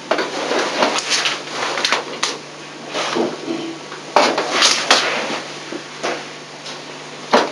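Clicks, knocks and rattles of plastic seat trim covers and their clips being worked loose and handled, about a dozen sharp clicks, the loudest near the end.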